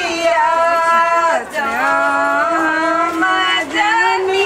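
Female voices singing unaccompanied in long held notes that glide from one pitch to the next.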